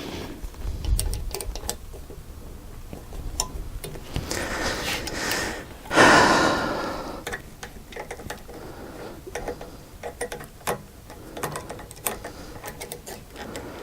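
Scattered clicks and knocks of hand work on the bench mill's metal Z-axis slide parts, with a louder rush of noise about six seconds in that fades over a second.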